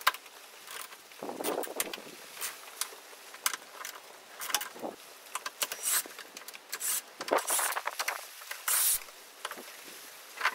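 Short bursts of a Ryobi cordless power tool spinning out the strut top mount bolts, among irregular clinks and knocks of metal parts.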